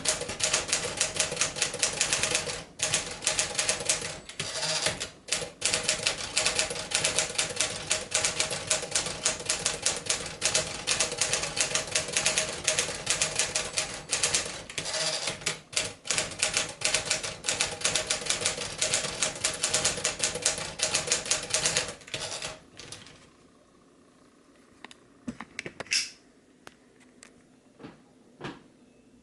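1957 Smith-Corona Clipper portable typewriter being typed on quickly, a rapid stream of key strikes with a few brief pauses. The typing stops about three-quarters of the way through, leaving a few scattered clicks and knocks.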